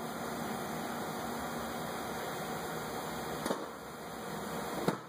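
Steady background hiss like a fan running, with two light clicks, one about three and a half seconds in and a sharper one just before the end, as a removed ignition coil is handled and set aside.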